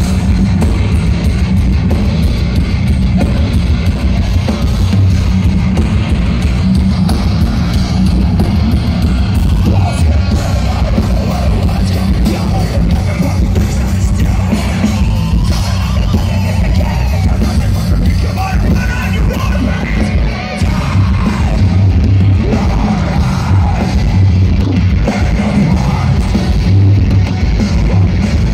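Heavy metal band playing live and loud through a big outdoor stage PA, heard from within the crowd: heavy drums and guitars with vocals.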